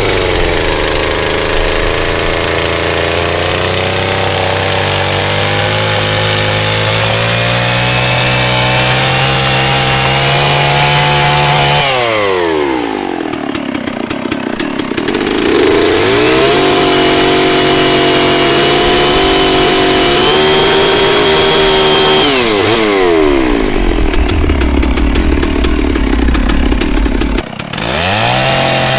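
Two-stroke chainsaw running at high revs, twice dropping in pitch under load as the chain bites into wood with a rasping cut, then climbing back.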